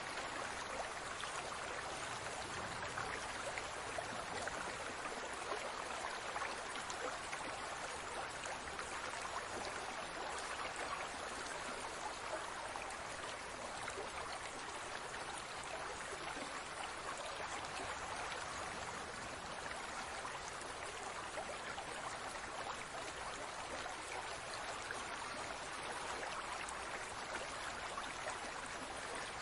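Aquarium water bubbling steadily, an even, unbroken sound of moving water.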